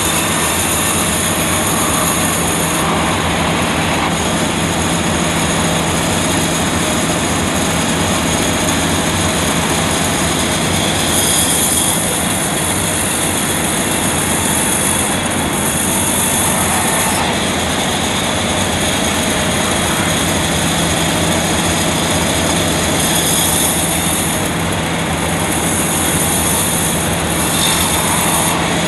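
Heavy machinery running steadily: a constant low hum under a loud hiss that swells and eases in the high end several times.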